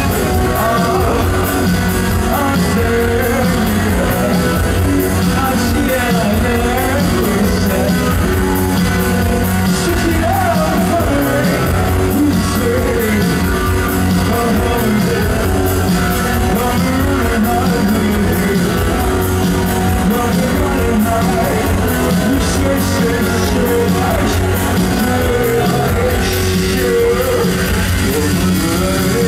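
Live rock band playing: a male singer singing hard into a microphone over bass guitar and the rest of the band.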